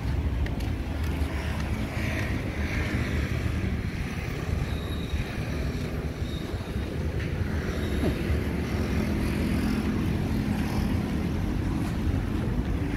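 Steady low rumble of street traffic, mixed with wind buffeting the microphone.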